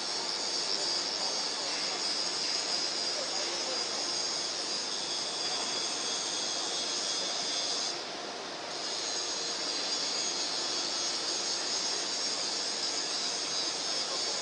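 Radial-axial ring rolling mill running as it rolls a red-hot steel ring: a steady machine hiss that dips briefly about eight seconds in.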